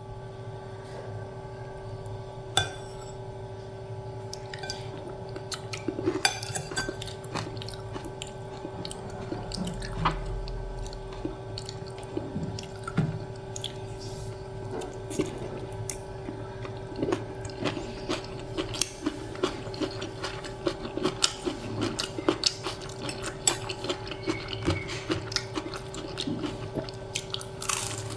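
Cutlery clinking and scraping on a plate during a meal, many short irregular clicks, more frequent in the second half, over a steady electrical hum.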